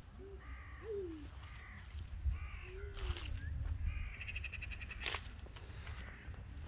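Crows cawing, a series of harsh caws about a second apart, with a short rapid rattle around four seconds in. A single sharp click comes about five seconds in, over a steady low wind rumble on the microphone.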